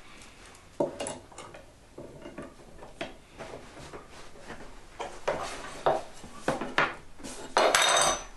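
Hand work at a workbench: a run of light knocks and clatters as hard objects are picked up and set down, growing busier in the second half, with a longer, louder burst of noise near the end.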